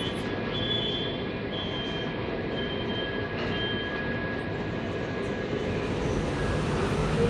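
Antwerp PCC tram standing at an underground platform with its doors open, its steady hum and rumble echoing in the station. Short high tones repeat about once a second through the first four seconds, and the sound grows a little louder near the end as the tram begins to pull away.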